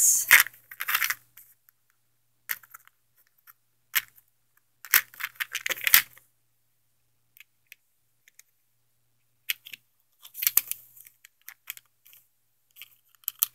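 A small plastic crayon box being opened and handled: sharp clicks of the plastic case and light rattling of the mini crayons inside, in short bursts with pauses between.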